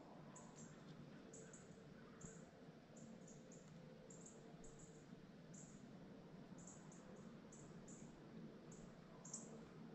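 Near-silent woodland ambience with faint, short, high-pitched chirps repeating irregularly, about two or three a second.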